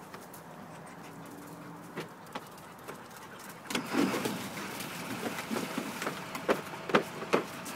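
Dogs splashing and wading in a water-filled plastic kiddie pool, the water sloshing for the last few seconds, with a few sharp slaps near the end.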